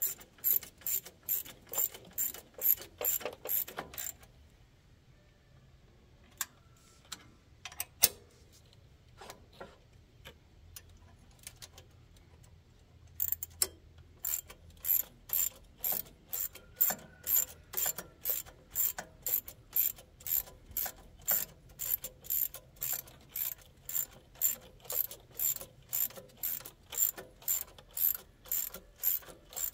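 Hand ratchet wrench clicking at a steady two to three clicks a second as bolts are run in. The ratcheting stops about four seconds in, leaving a few scattered clicks and knocks, then picks up again steadily about halfway through.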